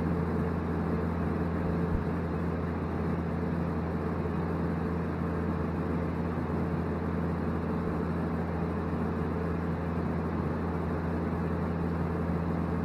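Steady low hum of a running motor or engine, several constant tones over an even rumble.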